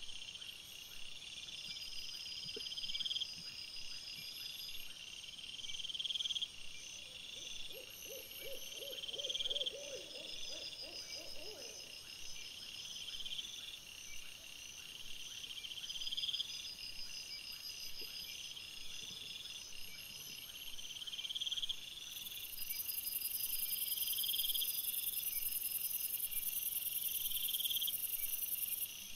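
Night insects chirping: a regular chirp repeating about every second and a half, layered with fainter higher chirps. A short run of rapid low pulses comes about a third of the way in, and a steady high buzz sets in for the last several seconds.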